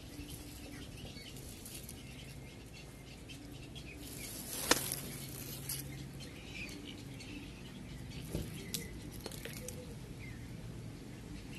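Outdoor background with faint bird chirps and a low steady hum. A single sharp click comes a little under five seconds in, with a couple of softer knocks a few seconds later.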